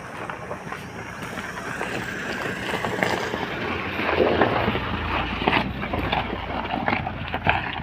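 Crunching steps on loose stones and gravel with rough wind buffeting the microphone, and the low running of the Mahindra XUV500's diesel engine growing underneath from about halfway through.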